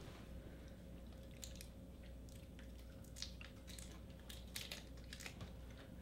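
Faint scattered clicks and crinkles of Starburst fruit chews being unwrapped and chewed, over a steady low room hum.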